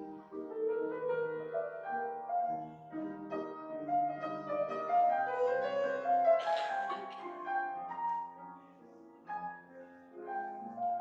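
Slow instrumental keyboard music with held chords and a melody on top, softer for a moment near the end. A brief noisy sound cuts in about six seconds in.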